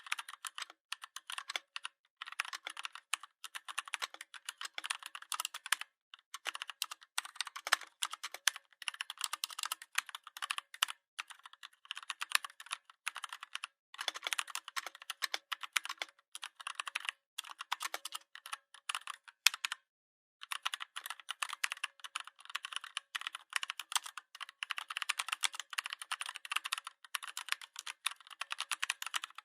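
Steady typing on a computer keyboard: rapid runs of key clicks, pausing briefly now and then between bursts.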